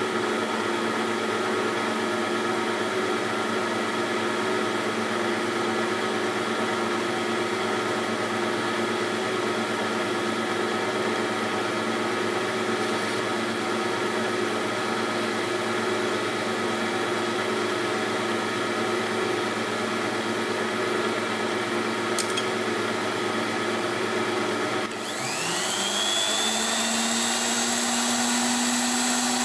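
Lathe and tool post grinder machinery running steadily, a dense whine of several steady motor tones. About 25 seconds in, a motor spins up with a rising whine and settles at a higher steady pitch.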